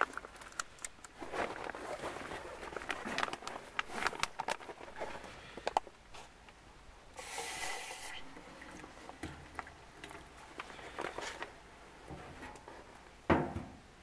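Crinkling of a foil-lined meal pouch and small clicks and knocks against a metal cup while the noodle meal is squeezed from the pouch into the cup, with a denser crinkle about halfway through. Near the end comes one louder knock as the cup is moved on the steel stove top.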